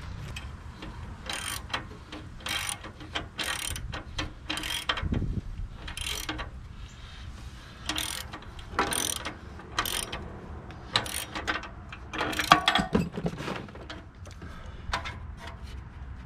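Ratchet wrench clicking in short, irregular strokes, roughly one a second.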